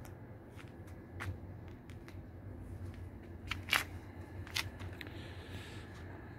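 A few irregular crunching footsteps on gritty, sandy ground, the loudest about four seconds in, over a low steady hum.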